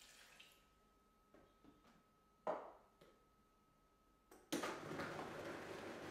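Water poured briefly into a Vitamix blender jar, then a sharp knock and a lighter one as the empty glass and the jar lid are set in place. About four and a half seconds in the Vitamix's motor starts suddenly and runs steadily, blending orange, banana and berries with the water.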